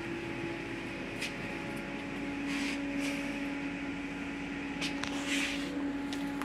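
Steady machine hum with one droning tone that drops slightly in pitch about a second and a half in, with a few faint brushing sounds over it.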